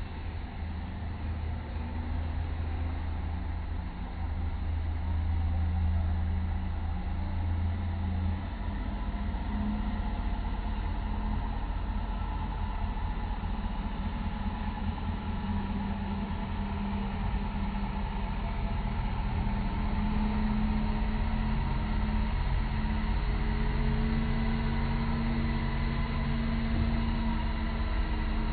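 Diesel engine of a water tanker truck running steadily as it drives slowly by, spraying water onto the street; its low hum shifts in pitch about eight seconds in.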